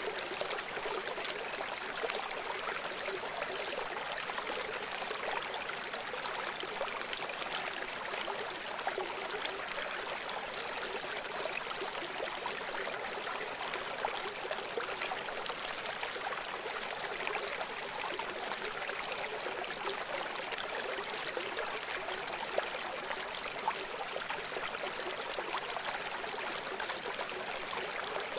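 Steady rushing and trickling of running water, like a stream or brook, as an even bright hiss with almost no low rumble.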